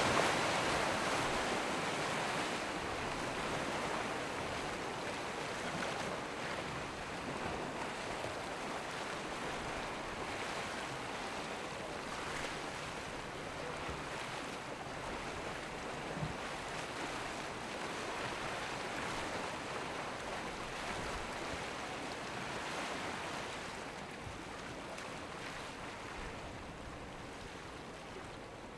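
Choppy sea and breaking waves, a steady rushing and splashing of water as a motor yacht's hull pushes through the chop and throws spray. Loudest at the start, easing off gradually toward the end.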